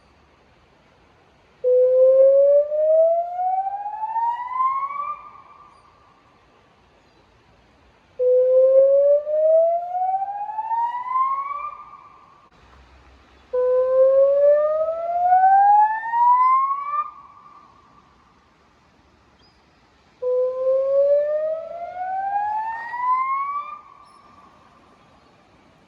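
Electronic river warning siren sounding through Bosch LBC-3406 horn loudspeakers on a warning activation. It gives a rising whoop tone: four sweeps, each climbing steadily for about three and a half seconds, holding briefly at the top and fading away, repeating about every six seconds.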